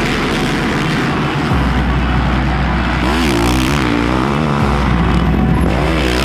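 Motocross bike engines revving, the pitch rising and falling repeatedly as the throttle is worked through the corners, most clearly a few seconds in and again near the end.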